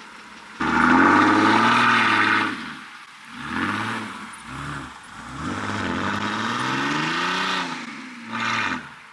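Car engine revving hard several times: a sudden burst about half a second in, then repeated revs rising and falling in pitch, the last a short blip near the end.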